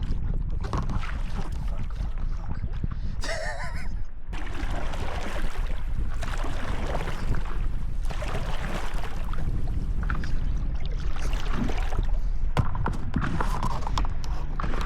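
Wind buffeting the microphone over lake water, with water splashing and a brief voice about three seconds in.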